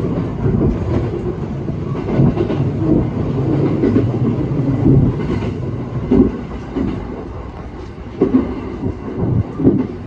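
ET122 diesel railcar running on the line, heard from inside the cab: steady engine and wheel rumble with clickety-clack over the rail joints. It eases off a little past the middle, and a few sharper knocks come near the end.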